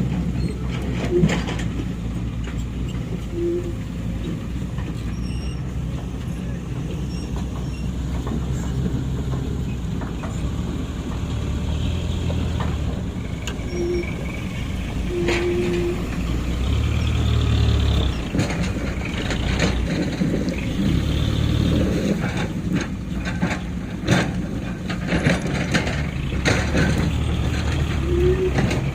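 Heavy diesel machinery running steadily, the engine note swelling under load at times. Scattered knocks and scrapes, thickest near the end, come from the excavator bucket raking river stones off a dump truck.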